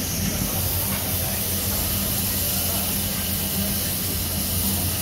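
Steam locomotive standing at the platform, letting off a steady hiss of steam over a low, even hum.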